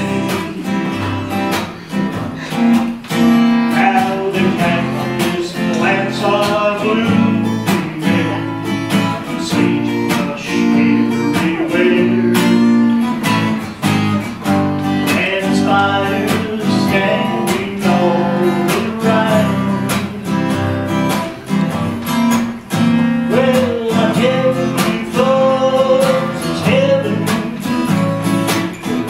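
Acoustic guitar played in a steady strummed rhythm.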